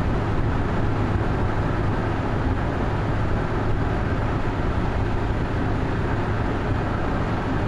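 Steady road noise heard inside a car's cabin while driving at highway speed, with a constant low hum underneath.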